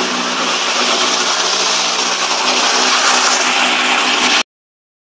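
Ford Sierra RS Cosworth's turbocharged 2.0-litre Cosworth YB four-cylinder running at a steady idle, close by and loud. It cuts off suddenly near the end.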